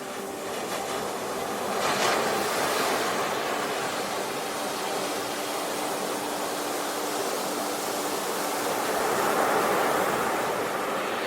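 Ocean waves washing onto the shore, the surf swelling about two seconds in and again near the end, over a faint steady hum.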